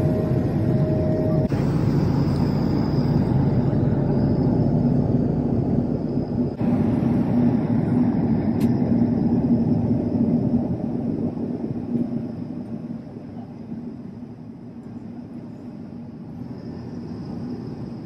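Steady cabin noise of an airliner in flight: jet engines and rushing air with a low steady hum. It grows quieter about twelve seconds in.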